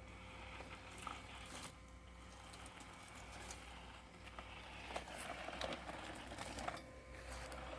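Parkside robotic lawn mower running faintly: a steady low motor hum, with scattered light ticks and rustling as it works through garden debris.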